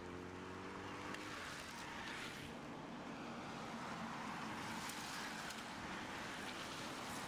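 A bunch of road-racing bicycles passing on damp tarmac with a steady hiss, and a following car's engine running behind them, its pitch rising slightly in the first second.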